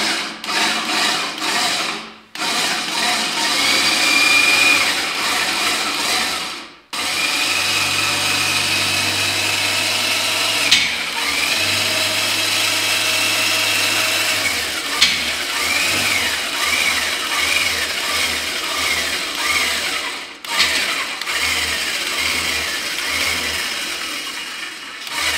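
Cordless drill running under load to drive a homemade steel scissor lift upward, in four runs with brief stops between them; its motor whine wavers in pitch as the load changes.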